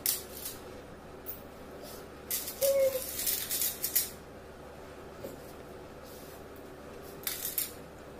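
Metal coins clinking and jingling as they are handled and dropped into steel bowls and a plastic cup, in a few short bouts, the longest and loudest from about two to four seconds in.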